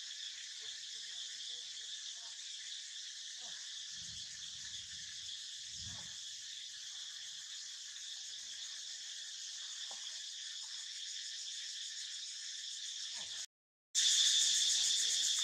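Insect chorus droning steadily at a high pitch, with two soft low thumps midway. The sound cuts out for a moment near the end and comes back louder.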